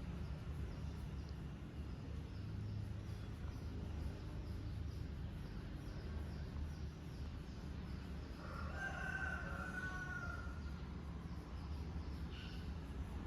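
A kitten sniffling close to the microphone: soft, even sniffs about two a second over a low steady rumble. About nine seconds in, a long pitched animal call lasts about two seconds.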